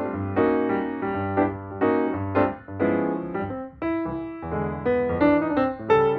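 Background keyboard music: chords struck about every half second over a low bass line.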